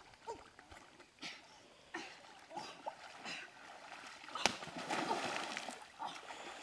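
Water splashing as a woman wades and grabs for fish by hand in a shallow river. Scattered small splashes, then one sharp splash about four and a half seconds in, followed by a stretch of busier splashing.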